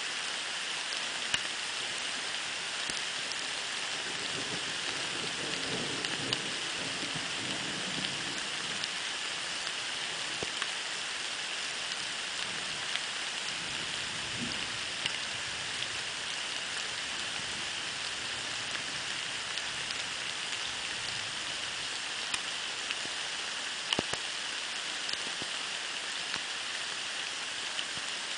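Steady rain falling, an even hiss with scattered sharper ticks of single drops. A faint low rumble of distant thunder sits underneath about five to eight seconds in.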